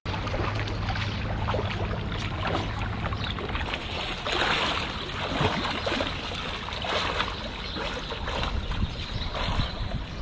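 Pool water splashing and churning around a swimmer's strokes, swelling and falling irregularly, over a low rumble that fades after about three seconds.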